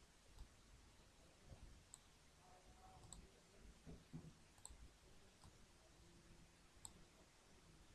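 Near silence with several faint, sharp computer mouse clicks at irregular intervals, made while lines are being drawn with the mouse.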